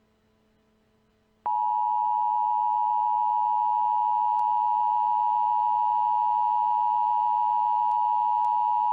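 Emergency Alert System attention signal: after about a second and a half of near silence, a steady two-tone alert sound begins and holds unchanged for about eight seconds. It is the 853 Hz and 960 Hz dual tone that warns listeners that an emergency message follows.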